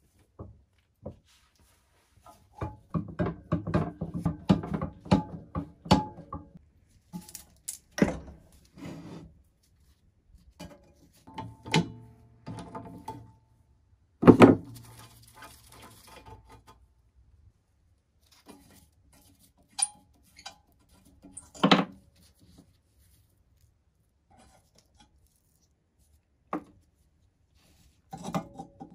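Rusty Metcalfe manual potato chipper being handled: its metal parts rattle and clank in a quick run a few seconds in, then scattered single metal knocks and clanks follow, the loudest about halfway and another about three quarters through.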